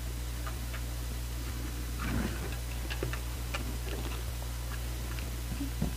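Cardboard digipack album case being unfolded and handled: faint, scattered light clicks and a soft paper rustle about two seconds in.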